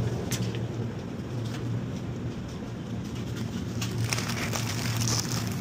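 Steady low hum of supermarket background noise, with a few light clicks and a brief rustle of handled goods near the end.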